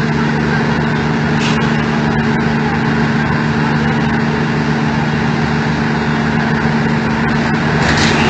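Fire engine running steadily: a constant low engine hum under a broad rushing noise.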